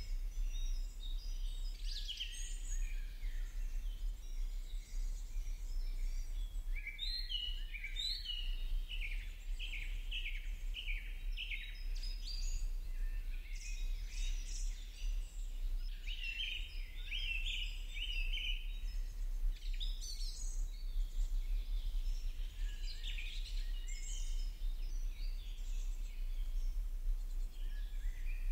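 Small birds chirping in short, high calls that come in quick runs, over a steady low hum.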